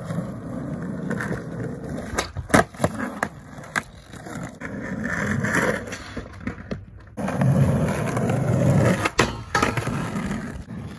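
Skateboard wheels rolling over a concrete skatepark surface, swelling and fading. Several sharp clacks of the board hitting the ground come in a cluster a couple of seconds in and again near the end.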